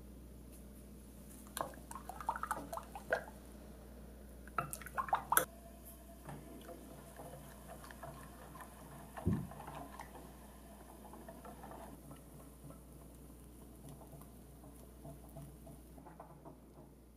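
Metal utensils clinking against a stainless steel saucepan in two short flurries early on, a low thump about nine seconds in, then a wire whisk stirring pastry cream on the heat with soft wet patter and scraping as the custard thickens.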